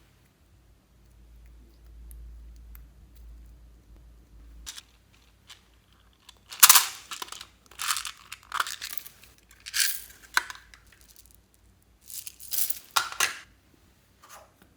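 Slime with beads mixed in being squeezed and worked by hand, crackling and crunching in five or six loud bursts that start about halfway through, after a few seconds of faint handling.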